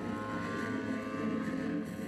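Gasoline engine of a large radio-control aerobatic plane (a GP 123 in a 108-inch Extra 330LT) running in flight, a steady pitched drone.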